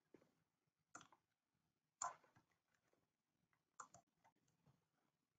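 Near silence broken by a few faint, sharp clicks, the clearest about one, two and nearly four seconds in.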